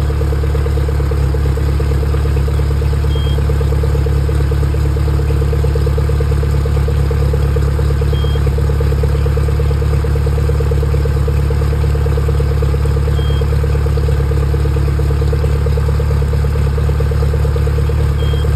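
Suzuki DF140 four-stroke outboard engine idling steadily on flush muffs during its warm-up, its thermostat not yet open. A faint short beep sounds about every five seconds.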